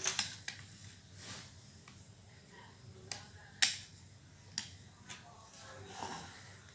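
Handling noise from a treadle sewing machine being worked by hand: three short, sharp clicks, the loudest about three and a half seconds in, between soft breathy rustles.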